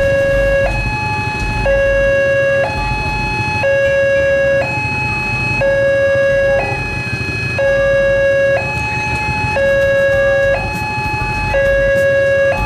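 Railway level-crossing warning alarm sounding, an electronic two-tone signal that alternates between a low and a high tone about once a second. It signals that the barriers are down and a train is approaching.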